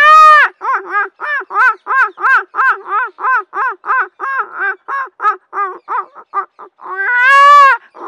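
A man mimicking a baby crying with his voice: a long wail, then a quick run of short sobbing cries about three a second, and another long wail near the end.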